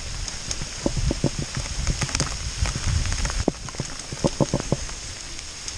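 Mountain bike rolling over a rough, wet trail: irregular knocks and rattles over a low rumble, with a steady hiss of rain throughout.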